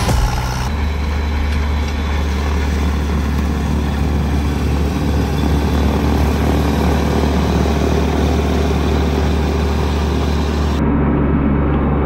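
Kubota B2301 compact tractor's three-cylinder diesel running steadily under load, with its PTO-driven rear snowblower churning and throwing snow. The hiss drops away abruptly near the end.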